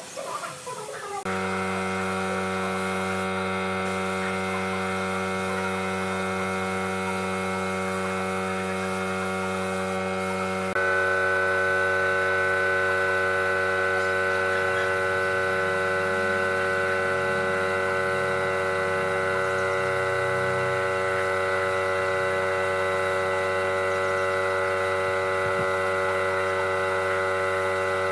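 Steady electrical or machine hum made of several fixed pitches. It starts suddenly about a second in, then about ten seconds in it steps up louder, with a new high tone added.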